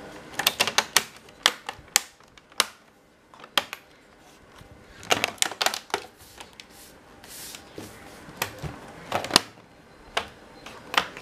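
Plastic snap clips of a Dell Latitude E6500 display bezel clicking into place as it is pressed around the screen. The clicks are sharp and come in several quick clusters, with pauses between them.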